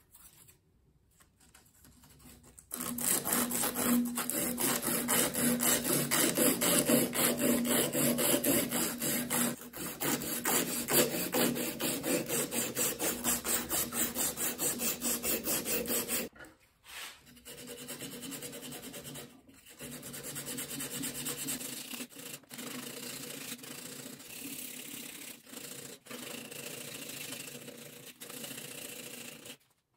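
Hand sanding inside the slots of an ash goblet stem: abrasive paper on a thin stick rubbed in rapid back-and-forth strokes against the wood. The strokes are loudest in the first half, then after a break go on more quietly.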